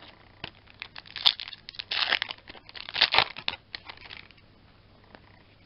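A foil Yu-Gi-Oh booster pack wrapper crinkling and being torn open by hand, a run of crackling rustles with the loudest bursts about one, two and three seconds in.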